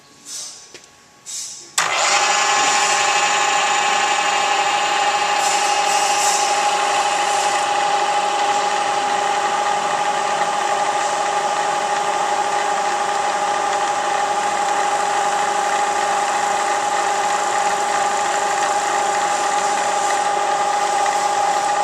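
Milling machine spindle switched on about two seconds in and running steadily with a strong even whine, a finish end mill taking light cuts on a steel hex part. A few faint clicks come before it starts.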